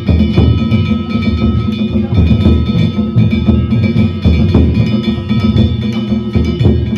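Danjiri festival cart's narimono: a taiko drum beaten in a fast, driving rhythm under the continuous clanging of small metal gongs (kane), whose ringing hangs over the drumming.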